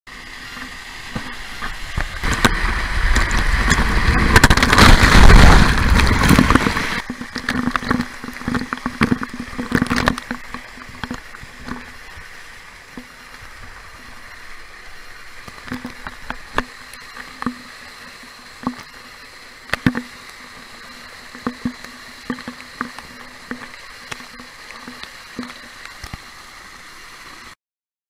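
Waterfall rushing loud and close for the first several seconds, then quieter splashing with many sharp taps of falling water. The sound cuts off suddenly near the end.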